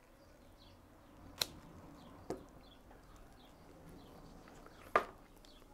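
Hand pruning shears snipping through ficus roots: three short, sharp cuts spread over a few seconds, the last one the loudest.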